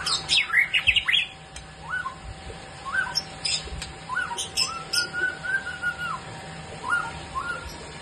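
Caged songbird singing: a rapid burst of high chirps and sweeping notes in the first second, then a string of short whistled notes with a longer warbled phrase about five seconds in.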